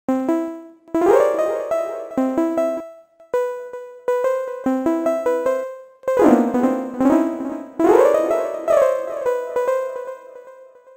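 Software synthesizer with a piano-like plucked tone playing a short arpeggio of single notes, each striking and then decaying. The pattern stops and restarts several times as notes are added, a few notes swoop up in pitch at their start, and the last notes ring out and fade near the end.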